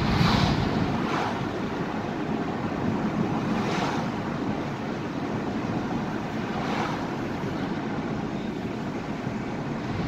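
Steady road and tyre noise inside a moving car's cabin, with a few brief whooshes as oncoming cars pass.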